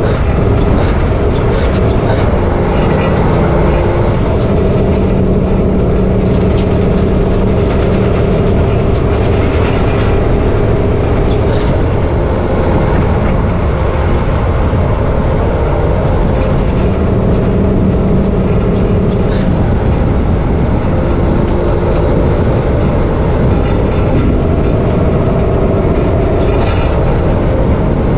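MAN LE280B 4x4 truck driving along the road: steady loud engine and running noise, the engine note shifting now and then, with scattered sharp clicks and rattles.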